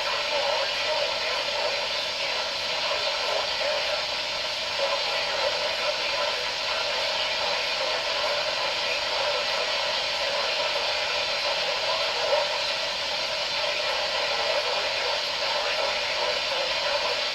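Steady radio static hiss from a NOAA Weather Radio receiver with weak, noisy reception, with no clear voice coming through.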